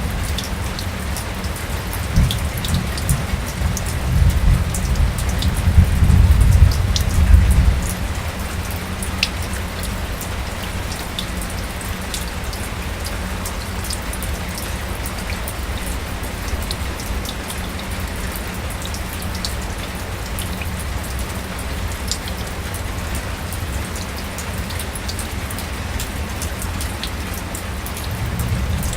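Light rain falling steadily, with scattered individual drops pattering. A deep low rumble swells in the first few seconds and fades out about eight seconds in.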